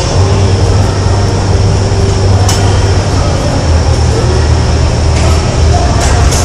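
Loud, steady low rumble of background noise in a large gym hall, with one sharp click about two and a half seconds in.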